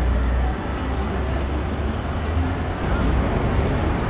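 Outdoor city ambience: a steady low rumble of street traffic.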